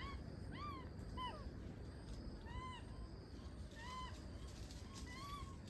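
Long-tailed macaque giving about five short coo calls, each rising and then falling in pitch, spaced irregularly about a second apart.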